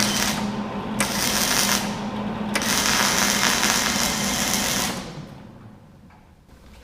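Flux-core wire-feed welder arc crackling and sizzling in three bursts as the trigger is pulled and released, the longest about two seconds, over a steady low hum from the welder; it stops about five seconds in.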